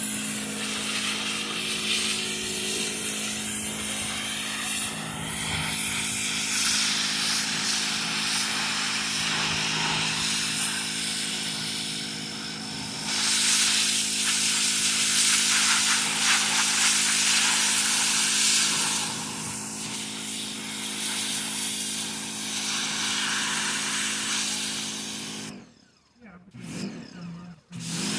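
Pressure washer running: a steady motor hum under the hiss of the water spray. The spray grows louder for several seconds in the middle, and everything drops away briefly near the end.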